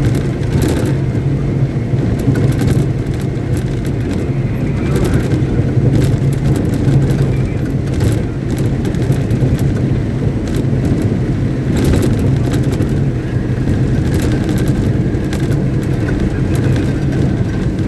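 Caterpillar 777D haul truck's large diesel engine running steadily at a constant speed during a stationary ground test, a loud deep drone with a few short sharp clicks over it.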